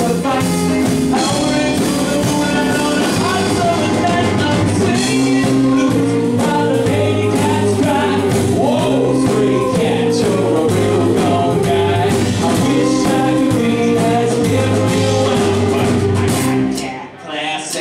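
Live rockabilly band playing: a male lead vocal sung into a microphone over electric guitar, bass, drum kit and keyboard. The music stops abruptly near the end.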